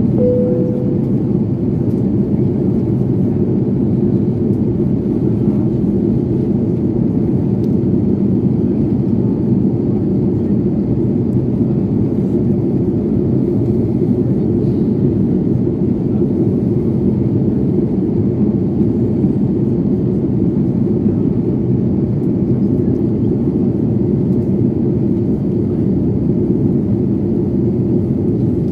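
Steady airliner cabin noise heard from a window seat: the jet engines and the airflow over the fuselage make an even, low drone.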